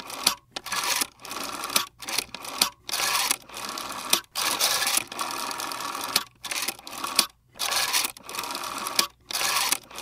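Rotary telephone dial being turned and released, digit after digit. Each turn is a short mechanical whirr as the dial spins back on its spring. They come about once a second, with brief gaps between digits.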